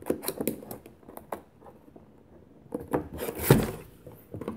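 A cardboard box being opened by hand: scattered taps, clicks and scrapes of the cardboard lid, a short lull, then more scraping and rustling with the loudest scrape about three and a half seconds in.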